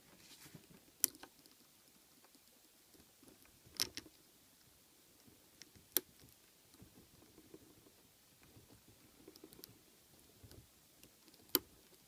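Lock picking in a brass Brinks padlock: a short hook working the pin stack under a tension tool, with faint scraping in the keyway and four small sharp clicks spread through, the last near the end.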